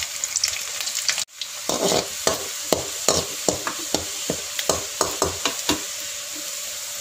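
Chopped garlic sizzling in hot sesame oil in a kadai, with a metal spatula scraping and tapping the pan in quick repeated strokes from about two seconds in. The sound drops out for a moment just over a second in.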